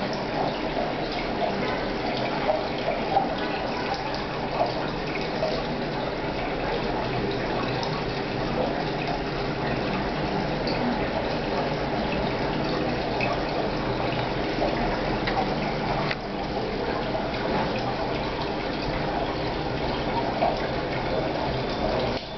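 Aquarium water bubbling and trickling steadily, with small crackling pops of bubbles and a faint steady hum under it.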